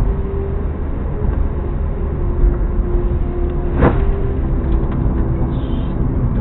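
Bus driving on a wet road, heard from inside the cab: a steady low engine and road rumble with a faint steady whine. One sharp click comes a little before the four-second mark.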